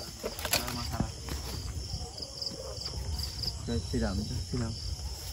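Crickets chirping in a fast pulsing trill, over a steady low rumble; a sharp click about half a second in.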